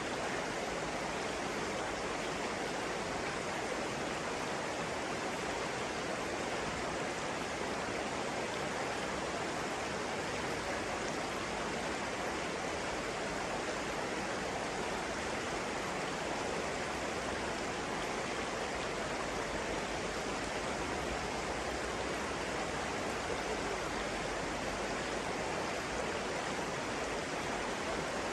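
Flowing water rushing steadily, like a stream or small waterfall, with no change in level.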